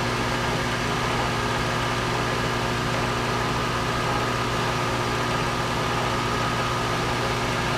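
Belt sander running steadily, a constant motor hum with a steady whine, used to sand an airfoil onto the leading edge of a rocket fin.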